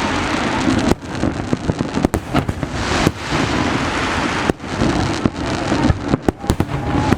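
Fireworks going off at close range: a dense, continuous crackle of bursting shells with many sharp bangs in quick succession.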